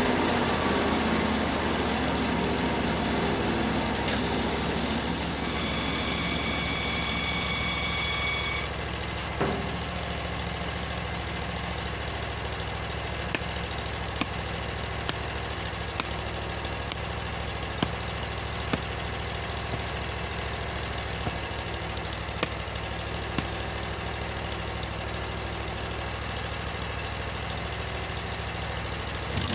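LASKI F500H stump grinder's engine running faster with a high whine, then dropping to a steady idle about eight seconds in. Over the idle come sharp single knocks roughly once a second: an axe chopping at the ash stump.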